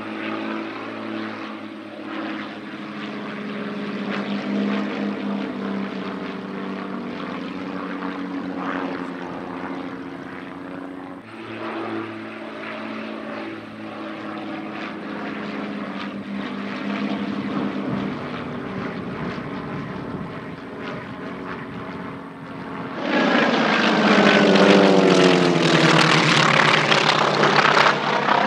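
Propeller drone of a pair of Cessna O-1 Bird Dog light aircraft flying overhead, steady in pitch. About 23 seconds in it gives way to a much louder, closer propeller-aircraft flypast whose engine pitch falls as it goes by.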